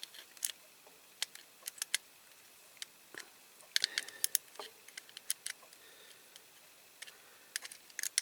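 Pliers working on the small metal pin of a diecast toy truck: irregular sharp metallic clicks as the jaws grip and slip, with a quick cluster of clicks about four seconds in.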